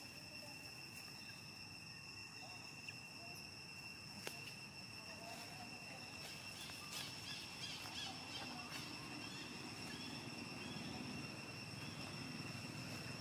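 Insects trilling steadily on two high, even pitches, with a few faint short chirps about halfway through and a couple of soft clicks.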